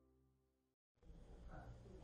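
The tail of a held music chord fading out, a moment of dead silence, then faint room tone.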